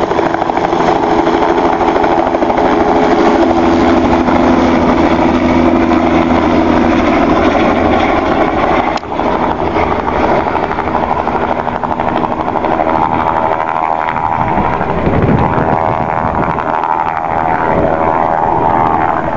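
Medical transport helicopter running loudly and steadily, with rotor and turbine noise. The pitch of its engine tones changes partway through.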